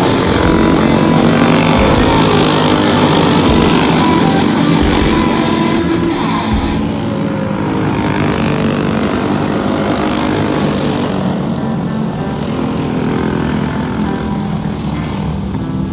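Racing go-kart engines running on a dirt oval, their pitch rising and falling as the karts come through the turn and pass. Rock music plays over them.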